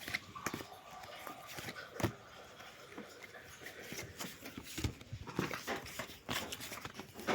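Tarot cards being shuffled and handled, a run of irregular soft clicks and rustles.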